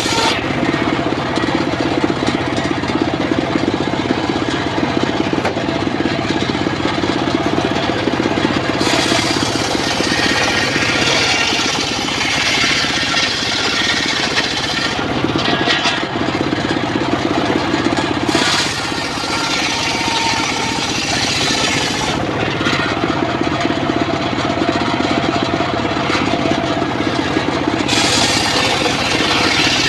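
Portable circular sawmill ripping a log, with the engine running steadily throughout. A harsher, higher cutting noise drops away and returns several times as the blade goes in and out of the wood.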